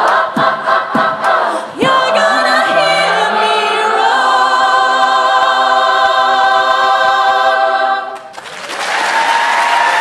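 Large girls' a cappella choir singing a rhythmic passage punctuated by sharp percussive clicks, then holding a loud final chord for about six seconds, which cuts off shortly before audience applause breaks out.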